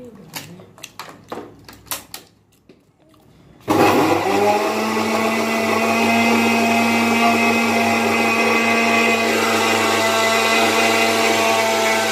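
A few light clicks and taps, then about four seconds in an electric kitchen blender switches on suddenly and runs loud and steady, its hum settling in pitch after a brief spin-up.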